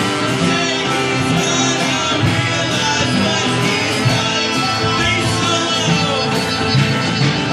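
Live rock band playing: electric guitar and drums, with singing.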